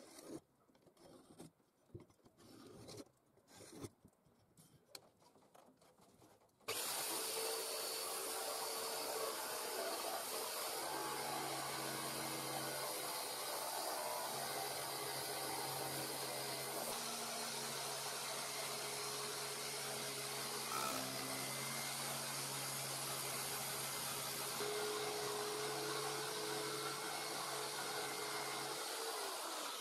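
Pencil scratching in short strokes as a circle is traced onto plywood, then, about seven seconds in, a Taiga ПЛЭ-100 electric jigsaw starts suddenly and runs steadily, its blade cutting through the plywood.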